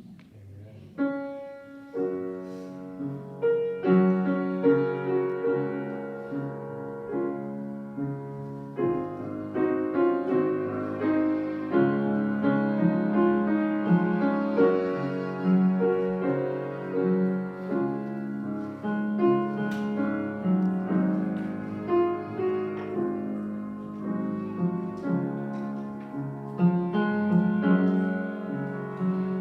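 Piano playing slow, sustained chords, starting about a second in.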